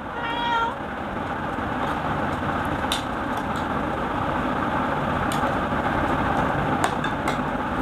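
Steady machine-like background hum, with a few light clicks of spoons against plates and the curry bowl as food is served. A brief high-pitched squeak sounds right at the start.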